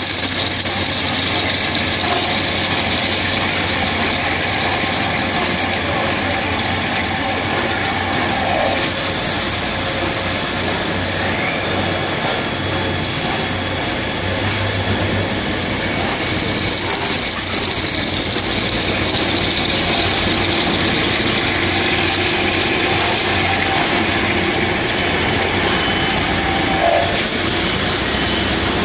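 GZC4040 high-speed plate drilling machine drilling holes in a tube sheet: a steady mechanical running noise from the spindle and cutting, with a hiss of coolant spray.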